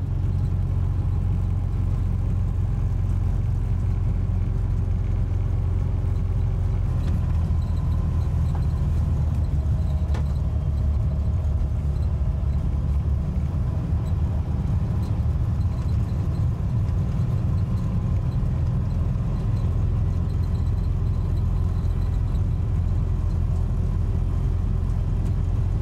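VW bus engine running steadily while driving, a constant low drone with road noise.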